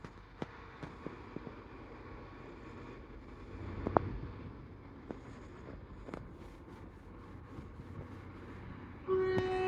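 Low background rumble with scattered faint clicks and one sharp knock about four seconds in. Near the end a train horn starts sounding loudly, a steady chord of pitched tones.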